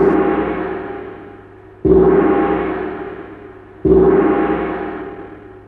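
A gong struck three times, about two seconds apart, each stroke ringing out and fading away.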